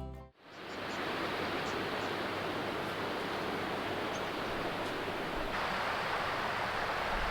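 A steady, even hiss that begins as a piece of music cuts out at the very start.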